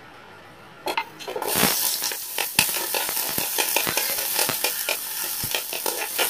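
Diced onion hits hot oil in a metal wok about a second in and sizzles steadily, while a metal ladle stirs it, clicking and scraping against the pan.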